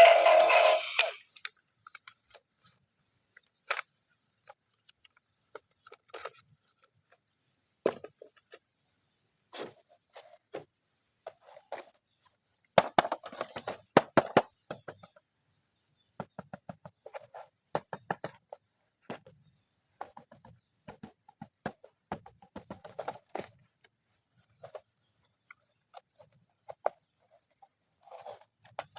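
Plastic toys and packaging being handled during unboxing: scattered light clicks, taps and rustles, with a busier burst of rattling clicks about halfway through. A faint steady high whine sits underneath.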